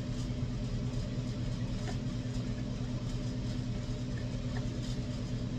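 A steady low hum from a running motor or appliance, with a few faint small clicks.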